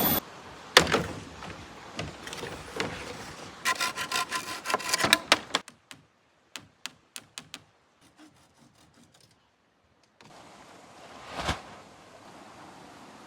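Woodwork sounds: a sharp knock, then irregular scraping strokes and a quick run of ringing strikes, typical of wood being sawn and chopped, followed by a few sharp clicks. Near the end a steady hiss with a single thud.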